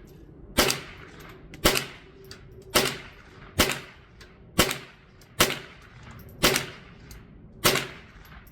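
.22 LR firearm firing a steady string of eight shots, about one a second.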